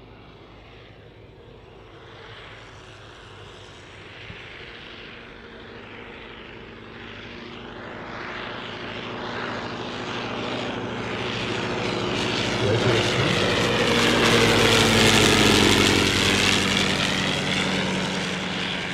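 Fokker Dr.I triplane's Oberursel rotary engine during a flypast. It starts faint, grows steadily louder to a peak about fifteen seconds in, then fades as the plane moves away. The engine is running smoothly.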